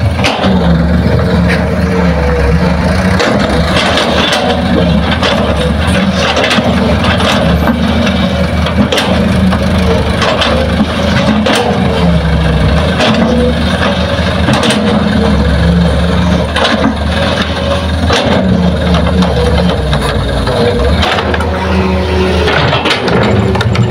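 Heavy diesel engines of a Hitachi excavator and a dump truck working while loading soil. The engine note rises and falls with the load, and there are scattered sharp knocks and clanks.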